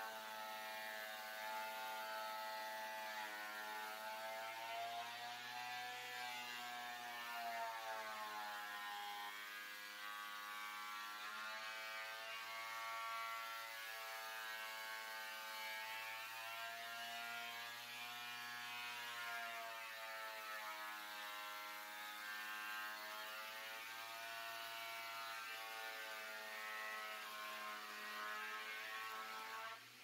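WEN benchtop thickness planer running with a board feeding through: a steady motor whine whose pitch slowly sags and recovers every few seconds as the cutterhead takes the cut.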